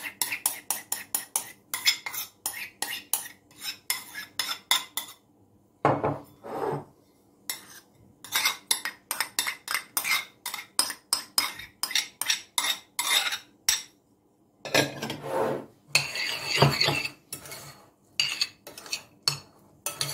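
A spoon knocking and scraping against ceramic and glass mixing bowls as cooked leeks and rice are scraped out and stirred together. Quick clinks come about three or four a second, with short pauses. Around two-thirds of the way through there is a longer scraping stir.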